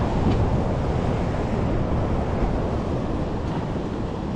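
Ocean swell surging and washing against a rock shelf, with wind buffeting the microphone as a steady low rumble.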